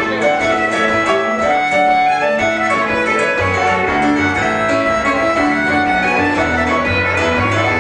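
Fiddle playing a tune with quick-moving notes over keyboard accompaniment with a deep bass line.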